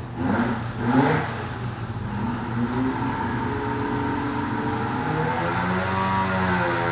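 Bikeman 900 big-bore two-stroke snowmobile engine on a dyno, blipped briefly at first and then pulling a wide-open-throttle sweep run, its pitch climbing slowly and steadily as the revs rise under load.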